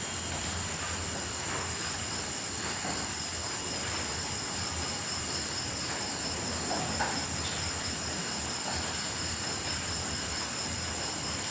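Crickets chirping: a continuous high-pitched trill, with a second insect's pulsing call a little lower, over a steady hiss. A few faint lower chirps come in about seven seconds in.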